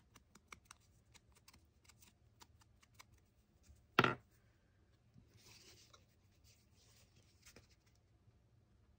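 Light taps and small clicks of hands working a mini ink blending tool against a paper cutout, then one loud knock about four seconds in as a tool is set down on the craft mat, followed by soft paper rustling.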